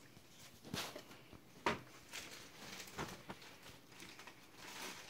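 Packing material rustling and crinkling as a wrapped sword is handled and lifted out of its box. Five or so short, separate rustles; the sharpest comes about a second and a half in.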